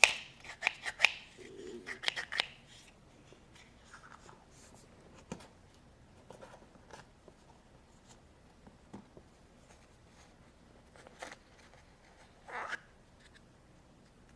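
Scattered clicks and taps of a plastic Play-Doh stamper toy being handled and pressed into modelling dough. They come thick in the first couple of seconds, then only now and then.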